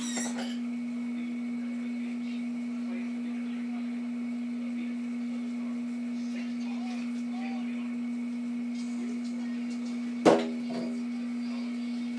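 A steady, unchanging low hum in a small room, with one sharp knock about ten seconds in.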